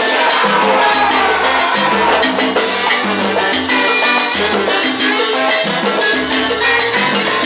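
Live salsa band playing, with trombone, saxophone and trumpet over a steady Latin percussion groove.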